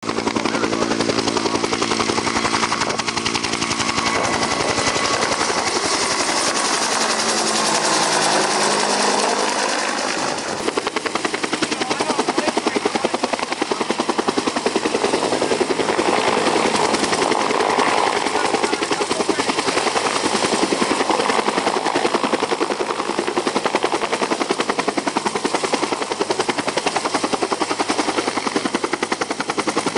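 Helicopter flying, its rotor blades chopping in a rapid steady beat over the engine's tones, the pitch sweeping as it passes by about eight to ten seconds in; the sound changes abruptly near ten seconds and the rotor chop carries on.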